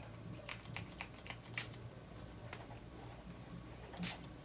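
Ouai leave-in conditioner's pump-spray bottle being worked: about five quick clicking pumps in the first two seconds, then one louder, longer spritz of mist about four seconds in.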